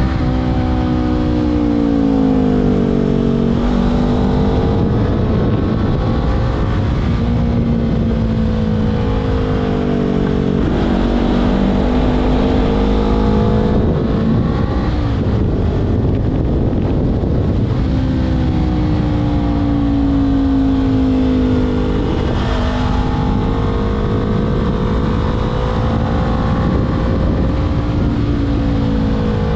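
Honda CBR500R's parallel-twin engine through a LeoVince LV10 slip-on exhaust while riding, its pitch climbing and falling over and over as the rider accelerates, shifts and rolls off, with a steady rush of wind noise underneath.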